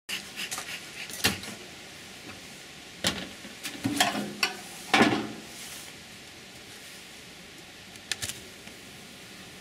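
Wooden beehive being opened with a metal hive tool: the lid lifted off and the inner cover worked loose, giving a string of knocks, scrapes and creaks in the first five seconds, the loudest about five seconds in, and two more sharp clicks near the end.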